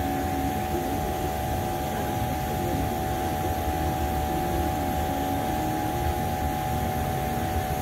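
Steady machine drone: a constant hum over a low rumble, with no letup.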